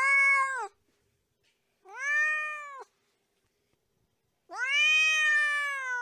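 Kitten meowing three times: two short meows about two seconds apart, then a longer, drawn-out meow near the end that slowly falls in pitch.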